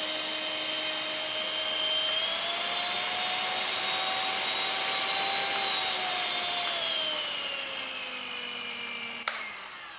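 Siemens hand mixer's electric motor running, freshly repaired: its whine rises in pitch over the first half as the speed is raised, then falls again. A click near the end, after which the motor winds down.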